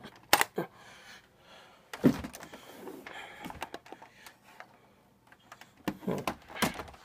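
Scattered plastic clicks and knocks of cables and plugs being handled and pushed back into an Xbox 360 Slim console's ports. There are two sharp clicks near the start, one about two seconds in, and a cluster near the end, with soft rustling of cables between.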